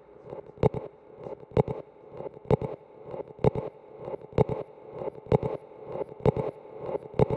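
Soundtrack with a slow, even beat: a sharp percussive hit about once a second, lighter hits between, over a low sustained drone.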